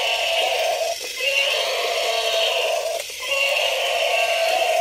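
Battery-powered walking toy elephant playing a buzzy electronic sound through its small built-in speaker. The sound repeats about every two seconds, with a short break between repeats.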